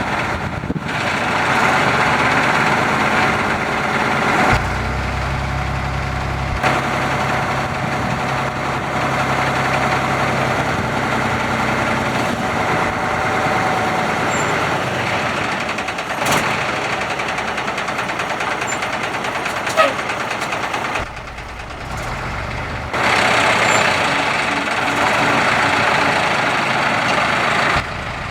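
Caterpillar 3206 six-cylinder diesel engine of a heavy concrete mixer truck idling steadily. The sound changes abruptly a few times, as if between takes, with a couple of short clicks.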